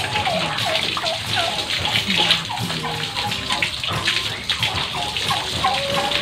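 Water spraying from a garden hose onto a goat's wet coat and the dirt ground, a steady hiss throughout. Short high chirps repeat alongside it.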